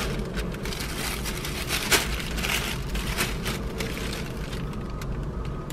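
Plastic takeout bag rustling and crinkling irregularly as it is held up and shifted about, over a low steady rumble.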